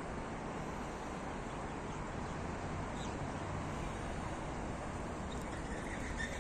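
Steady outdoor background noise from the open air, with small birds starting to chirp near the end.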